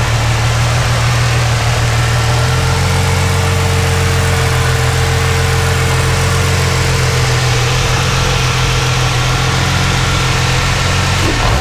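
Turbocharged Toyota 2JZ inline-six, stroked to 3.4 L and still being broken in, idling steadily, its idle note shifting slightly about two and a half seconds in.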